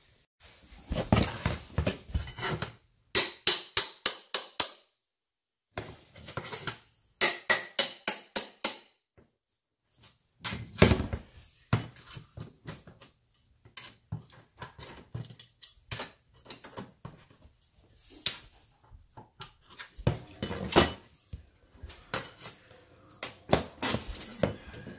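Hammer and pry bar working a metal carpet transition strip loose from the floor. There are two runs of quick, ringing metallic taps, about five a second, and scattered single knocks and clunks.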